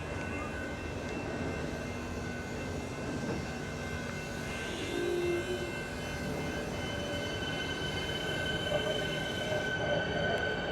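Electric suburban train standing at the platform, its onboard equipment giving a steady hum with several high steady whines over a low rumble.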